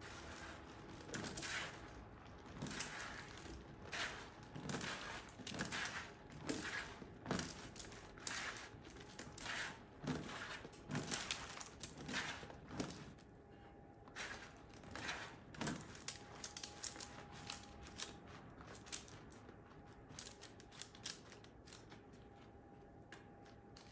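Raw aubergine cubes tossed and turned by hand on a parchment-lined baking tray: a soft rustle of the paper and pieces knocking together about once a second. The rustles thin out about two-thirds of the way through as the pieces are spread flat.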